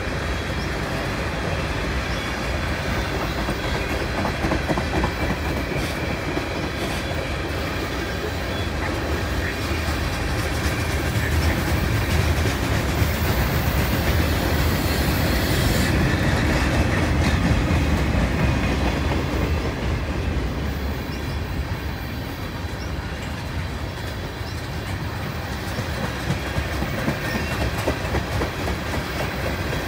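CN freight train's tank cars, covered hopper and boxcar rolling past on steel wheels: a steady rumble with repeated clacks from the wheels crossing rail joints. It grows louder from about ten seconds in and eases off after about twenty.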